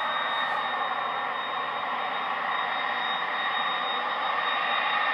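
Twin jet engines of an Airbus A320-family airliner running on the runway: a steady rushing noise with a constant high whine, growing slightly louder near the end.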